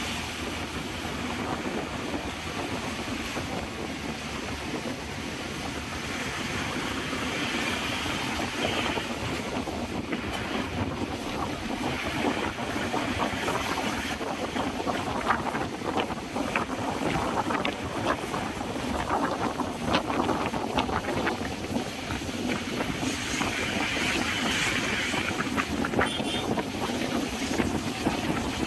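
Moving bus heard from inside the cabin: engine and tyre rumble with wind rushing past an open window. Short clatters and rattles from the bus body come through in the middle stretch.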